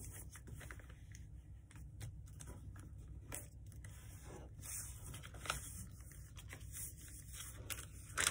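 Paper being folded and creased by hand: irregular rustling, crinkling and light scraping, with a few sharper crackles, over a faint steady low hum.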